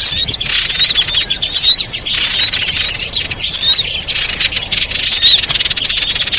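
Lure recording of small songbirds' calls: rapid, high-pitched chirps that sweep up and down in overlapping bursts. It is played to draw small birds down to a trap.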